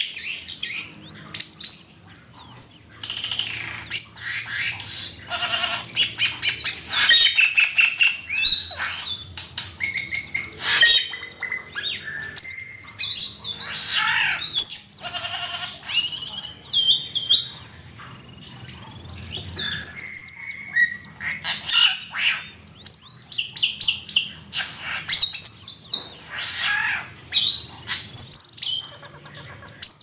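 Cucak keling bird singing a busy, varied string of chirps, whistles and harsh squawks, with the calls following one another almost without a break.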